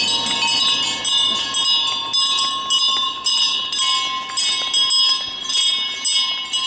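Bells on a herd of walking cattle clanking continuously and irregularly, several ringing at once.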